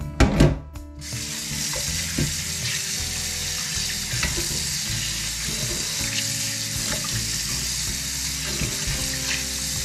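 A brief loud clatter, then a kitchen tap running into the sink from about a second in, steady, with small clicks as fish is rinsed under the water.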